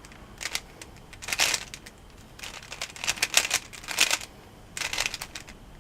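Plastic Rubik's cube layers being turned by hand, giving several short bursts of quick clicking and clacking.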